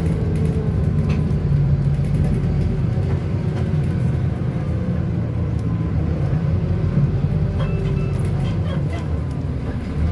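Bus engine running under way, heard from inside the bus as a steady low rumble, with small rattles and clicks from the interior.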